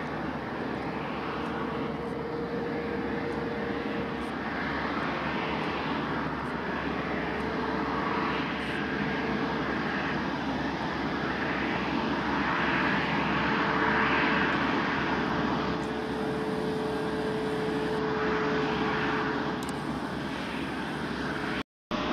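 Airbus A340-500's four Rolls-Royce Trent 500 turbofans at taxi power: a steady jet rumble with a held whine, swelling slightly about two-thirds of the way through as the airliner rolls past. The sound cuts out briefly near the end.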